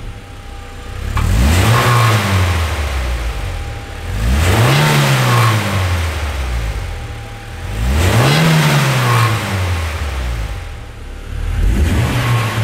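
Honda CRX VTEC's 1.6-litre twin-cam four-cylinder revved from idle with the car standing still. Its exhaust note rises and falls three times, each rev lasting about two seconds, with a fourth rev starting near the end.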